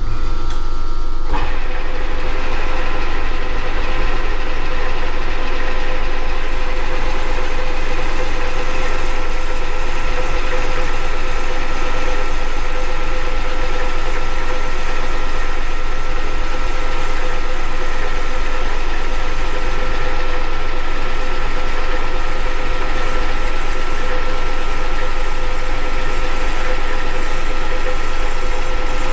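Manual metal lathe running steadily with its motor and gears whining while a boring bar takes a spring cut inside a spacer's bore: a zero-depth pass that lets the bar spring back and skim a little more off.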